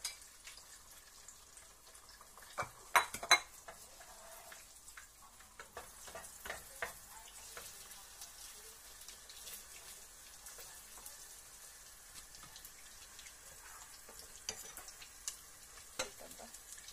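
Beaten eggs sizzling steadily as they fry in oil in a pot, stirred with a wooden spatula. A few sharp clacks cut through; the loudest two come about three seconds in, with smaller ones later.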